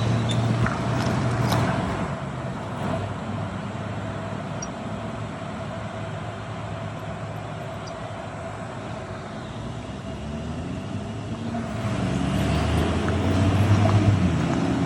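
Road traffic noise, with a vehicle passing at the start, quieter in the middle, and another vehicle coming up louder near the end. A faint steady hum sits underneath.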